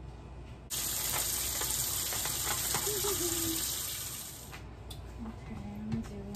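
Water running from a kitchen tap, starting suddenly under a second in and running for about four seconds before fading off.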